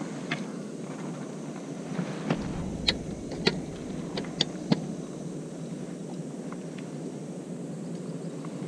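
Sharp clicks and taps of rod and tackle being handled as a crucian carp is lifted out on a float rod, about seven of them in quick succession between two and five seconds in, over a steady low background noise.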